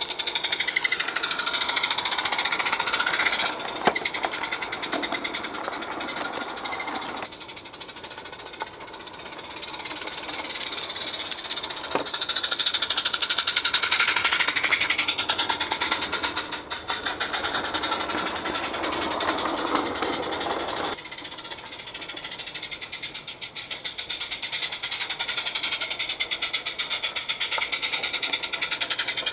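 Garden-scale live-steam model locomotive and its coaches running along the track, a fast steady rattle of exhaust beats and wheels on rail that shifts in pitch as the train passes close by. The sound changes abruptly a few times.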